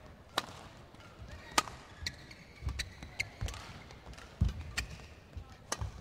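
Badminton rally: rackets striking the shuttlecock in sharp cracks at irregular intervals of about a second, with players' shoes thudding on the court floor between shots.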